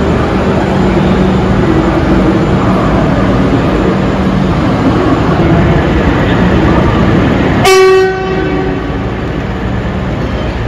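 Steady rumble of trains standing in a station, with a low hum running through it, then one short, loud train horn toot about eight seconds in.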